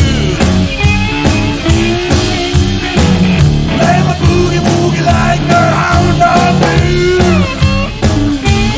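Live blues boogie played by an electric guitar, electric bass and drum kit, a loud, driving rock-and-roll beat with the guitar's melodic line bending in pitch over the rhythm.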